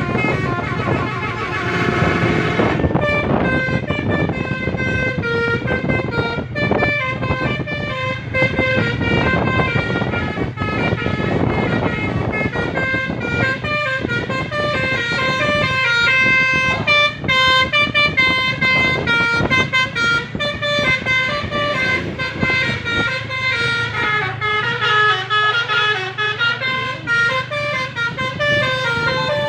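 Telolet bus horn, a multi-tone air horn, playing a long melody of quick stepping notes over a low steady drone. A noisy rush accompanies the notes for the first couple of seconds.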